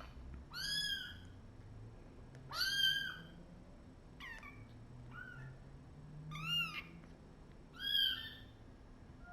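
Cat meowing: about six short, high-pitched meows that rise and fall, spaced a second or so apart.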